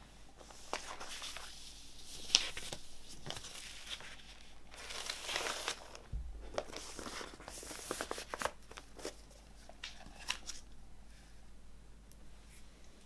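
Paper inner sleeve of a vinyl LP rustling and sliding in several bursts as it is handled and laid flat on a wooden tabletop, with small taps and one sharp tap about two seconds in.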